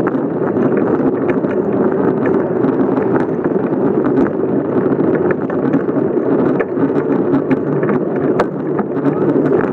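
Bicycle riding along, heard through a camera fixed to the frame: a steady rumble of the tyres and frame over the path, with wind buffeting the microphone and frequent small rattling clicks.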